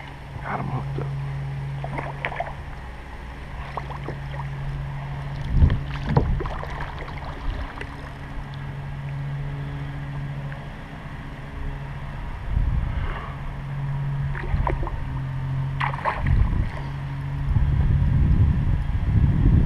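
Water and handling sounds from a kayak while a hooked sheepshead is played on rod and line: scattered knocks and clicks, with a low hum that comes and goes. The fish splashes more loudly at the surface beside the kayak near the end as it is brought alongside.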